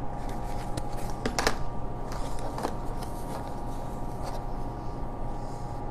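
Fabric being rustled and handled, with a few small clicks, over a steady background hum.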